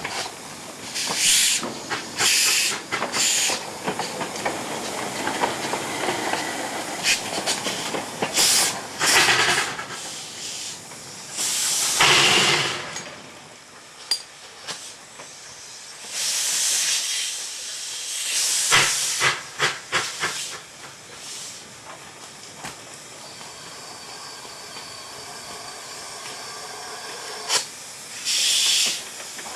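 Small narrow-gauge 0-8-0 steam locomotive hissing off steam in about a dozen bursts of half a second to a second each, at irregular intervals, over a steady lower hiss. A few sharp knocks fall between the bursts.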